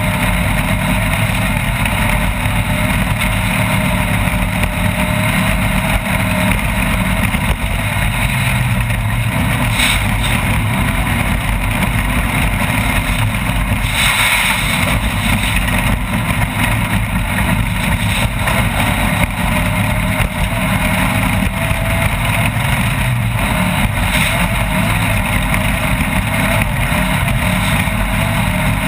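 Off-road race vehicle driving at speed, its engine running continuously under a loud, dense mechanical and road noise, with a short louder rush of noise about fourteen seconds in.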